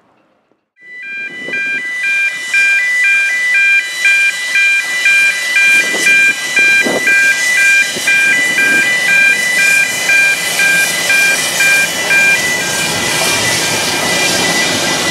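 Road level crossing warning alarm sounding a loud repeated two-tone warble, about two notes a second, stopping about twelve seconds in. Under it is the steady hiss of a Welsh Highland Railway Garratt steam locomotive crossing the road.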